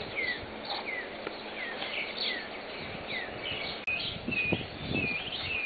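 Birds chirping outdoors: a short falling chirp repeated every half second or so, joined in the second half by other brief high calls.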